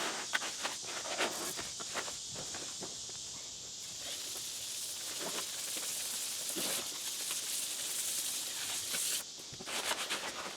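Concrete being mixed by hand in a plastic tub: scattered gritty scrapes and squelches as the mix is turned over. A steady hiss joins in about four seconds in and stops suddenly about nine seconds in.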